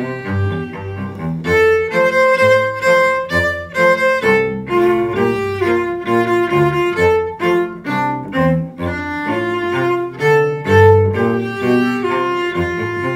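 Two cellos playing a lively duet, a low line under a higher one, in short detached bow strokes with brief gaps between many of the notes.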